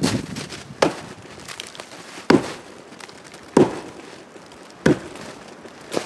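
An axe striking the trunk of a tall dead tree in a steady run of sharp blows, roughly one every second and a quarter. The blows test the tree's soundness by shaking its cracked, loose top, the mark of a widowmaker.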